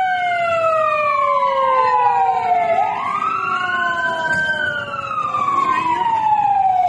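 Fire truck siren wailing: the pitch sweeps up quickly, then falls slowly, the cycle repeating about every four seconds.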